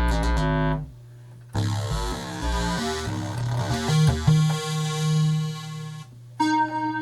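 Novation XioSynth synthesizer playing a bass-heavy note pattern that stops under a second in, then after a short gap a brighter sound with a run of notes over a bass line, and after a second brief gap a different sound starting near the end.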